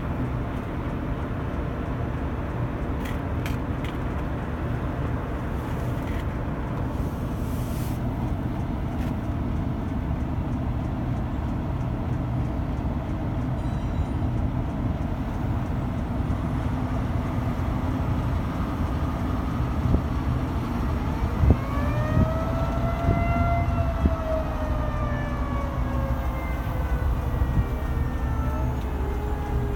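STH-10 outdoor warning siren sounding a test over a steady low background rumble. About two-thirds of the way in it winds up to a peak, then slowly winds down in pitch. A fainter, lower siren tone comes in near the end, which the uploader takes for the 3T22's low tone.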